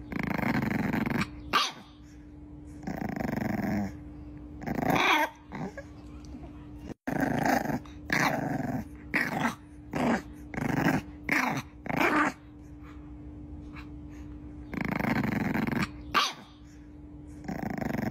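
Bulldog puppy growling in a series of separate bursts, some about a second long, with a quick run of short growls in the middle.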